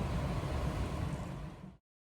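Outdoor traffic ambience, a steady rumble of passing road vehicles with an even noise over it, that cuts off abruptly to silence near the end.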